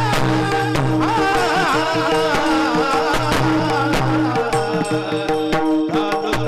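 Marathi devotional kirtan music: a steady held drone with a gliding melodic line over it, and regular sharp percussion strokes.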